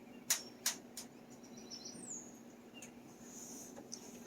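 Two sharp clicks, then faint high bird chirps, one a short downward-sliding whistle, over a low steady hum.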